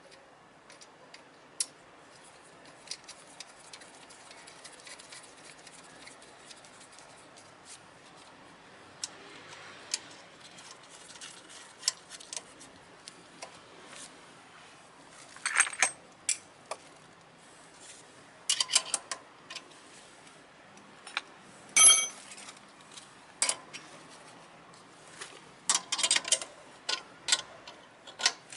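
Hand tools and metal brake parts clicking and clinking during work on a scooter's rear brake. Light scattered ticks come first, then louder metallic clinks with a short ring in the second half.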